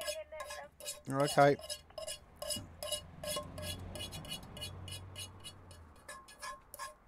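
Metal utensil scraping and tapping against a frying pan while the food is scraped out onto a plate: a quick run of short ringing clinks, several a second. A low hum sits under the middle of it.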